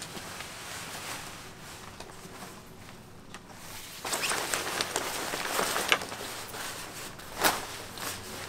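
Tent fabric rustling as it is handled and packed away, louder and busier about halfway through, with a few sharp knocks.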